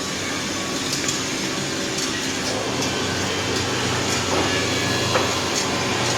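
Chair-leg drilling and threaded-insert machine running steadily: a continuous motor hum and whir with a few light clicks and knocks.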